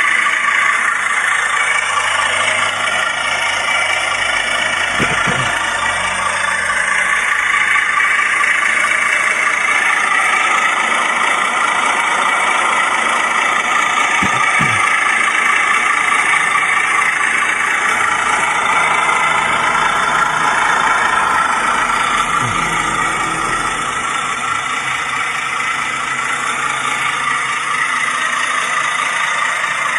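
Recorded diesel truck engine idling steadily, played back as a sound effect from an MP3 module through the small, thin-sounding speaker built into a miniature generator set.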